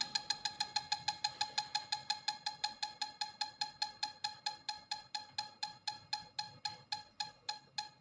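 Home-built electronic metronome circuit ticking: an even run of short, pitched clicks at about six a second, gradually slowing as its time-delay runs down.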